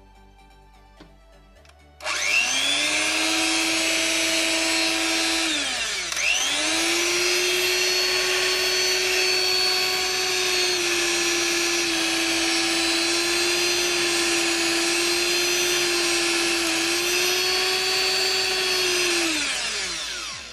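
Sinbo 100 W hand mixer's brushed motor switched on after repair and running with a steady whine. It starts about two seconds in, stops and restarts briefly, shifts speed slightly as the switch is moved, and winds down near the end.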